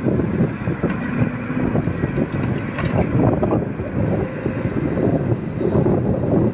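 Heavy construction machinery's diesel engine running steadily, with wind buffeting the microphone.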